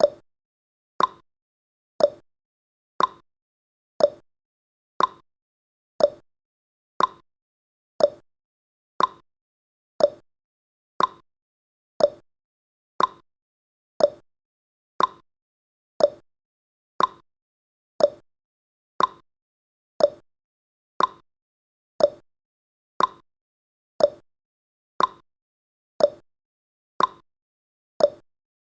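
Countdown timer's tick sound effect: one short, sharp tick every second, evenly spaced, each dying away quickly.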